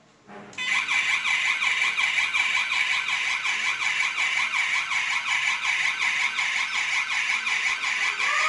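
The electronic siren of a homemade beam-break intruder alarm starts suddenly about half a second in and keeps sounding loudly, with a fast warbling pitch that sweeps up and down several times a second. The siren means the invisible beam has been broken and the alarm has been set off.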